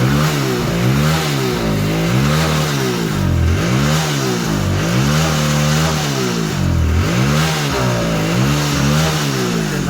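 An engine revved up and down over and over, its pitch rising and falling about once a second.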